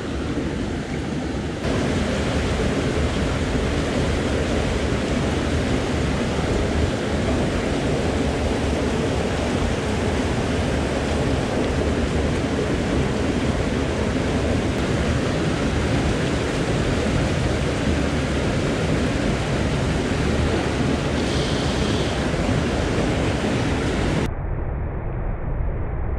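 Steady rushing of a small stream's current pouring over a little cascade, close to the microphone. About two seconds before the end it changes suddenly to a duller, more muffled rush.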